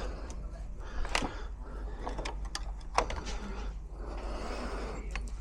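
Metal lock or window hardware being worked by hand: a few sharp clicks and knocks, the loudest about a second in and about three seconds in, over a low steady hum.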